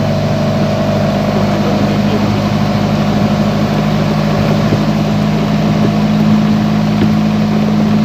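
Inboard engine of a motorized outrigger boat (bangka) running steadily at cruising speed, a constant drone with no change in pitch.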